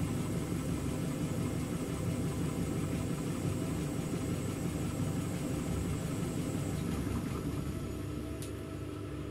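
Indesit front-loading washing machine running steadily with a motor hum while its drum turns through thick suds, held back by a suds lock from going into spin. The running eases off near the end, with a single sharp click.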